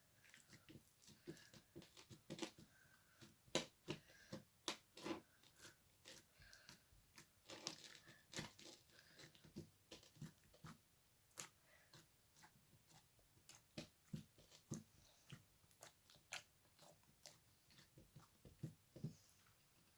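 Slime being squeezed and poked by hand, giving faint, irregular crunchy pops and clicks, about two or three a second.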